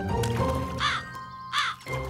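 Two short cawing bird calls from the cartoon's black birds, one a little before the middle and one near the end, over background music.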